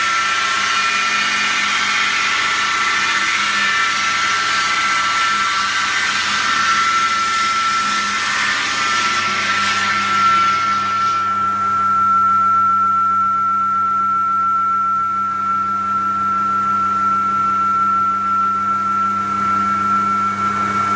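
IMER Masonry 750 masonry saw cutting through a clay brick: a loud grinding hiss over the blade's steady high whine. About halfway through the grinding stops as the cut ends, and the blade keeps spinning free with the same steady whine and hum.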